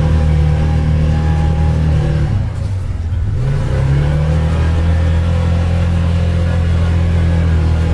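Side-by-side UTV engine running steadily under load. It eases off about two and a half seconds in, then climbs back up to speed about a second later.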